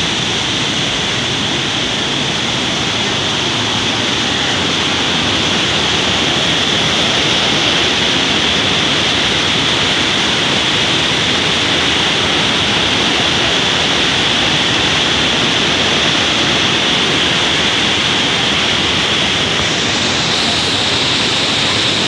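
Waterfall pouring into whitewater rapids over a rocky creek bed: a loud, steady rush of water.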